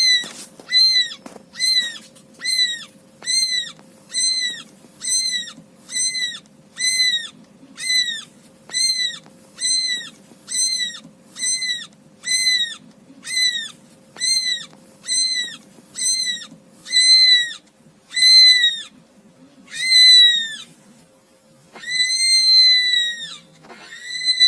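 A high, piercing call repeated over and over, about one and a half a second, each one rising and then falling away. From about two thirds of the way in, the calls come slower and longer, and near the end they merge into one long held tone.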